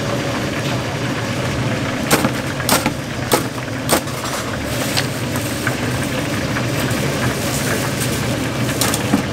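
A metal fry basket and tongs clank against a steel tray as fried mini crabs are tipped out: four sharp clanks about two to four seconds in, then a lighter one. Under them runs a steady low hum of stall noise.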